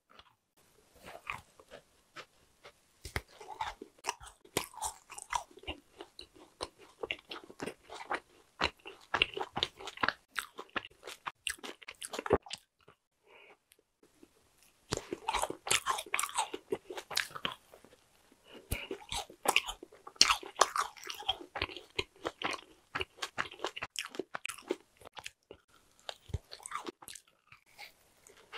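Close-miked crunching bites and chewing into a white-coated dessert bar on a stick, with crisp crackles between chews. There is a short pause a little before halfway, then the crunching starts again.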